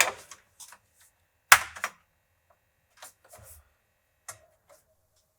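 Scattered sharp clicks and knocks of hands handling hardware at a workbench, the loudest about one and a half seconds in.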